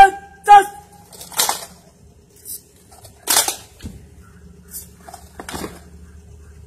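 The tail of a shouted drill command, then cadets presenting arms with rifles: a handful of sharp slaps and knocks of hands on rifles, spread irregularly over several seconds, over a steady low hum.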